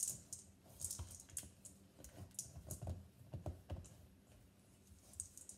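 Wooden spatula stirring chocolate chips into stiff cookie dough in a metal mixing bowl: a run of irregular clicks and knocks.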